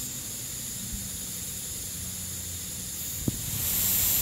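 Aircraft carrier flight-deck washdown sprinklers (flush-deck nozzles) spraying water: a steady hiss of spray that grows louder near the end, with a single sharp click shortly before.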